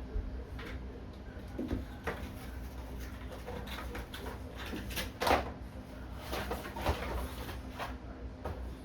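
A few irregular light clicks and knocks over a steady low hum, the loudest knock about halfway through.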